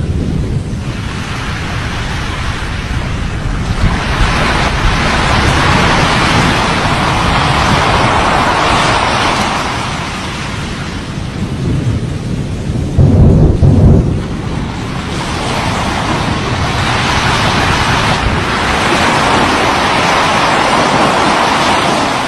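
Erupting volcano: a loud rushing roar that swells and fades in slow waves, with a deep boom about two-thirds of the way through.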